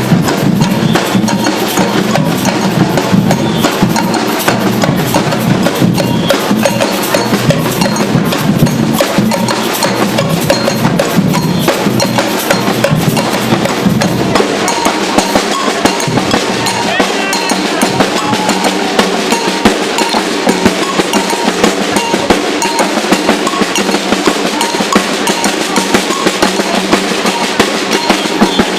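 Batucada street-percussion group playing a dense, fast rhythm on snare drums over deep bass drums. About halfway through the bass drums drop out, leaving the snares and higher drums playing on.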